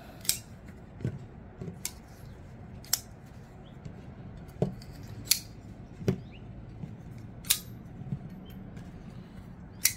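Kizer folding knives being opened one after another: a string of about nine sharp metallic clicks, spaced unevenly, as the blades swing out and lock open, with quiet handling between them.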